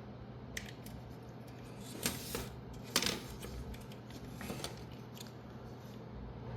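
Light handling of small graphics-card fan parts: a few sharp clicks and taps at uneven intervals, the loudest about three seconds in, over a low steady hum.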